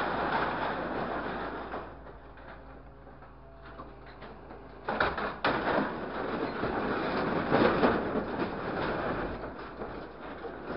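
Grapple truck's hydraulic orange-peel grapple carrying a load of scrap sheet metal: loose metal rattling and scraping, with the crane's hydraulic hum in a quieter stretch. Two sharp clanks come about five seconds in, followed by a louder clatter as the scrap is lowered into the steel truck bed.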